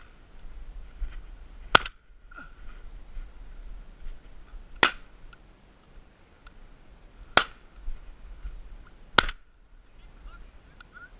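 Shotguns firing: five sharp reports at uneven spacing, one right at the start and then about two, five, seven and a half and nine seconds in.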